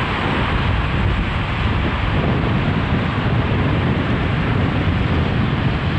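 Steady, even rumbling noise with no distinct engine note, knocks or changes.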